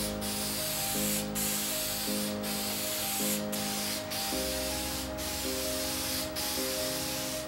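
Aerosol spray can hissing in long passes, each broken off for a moment about once a second, as a finish is sprayed onto a wooden top.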